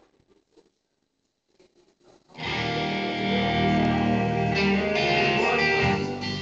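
Near silence for about two seconds, then a backing track starts suddenly over PA speakers: band music led by electric guitar.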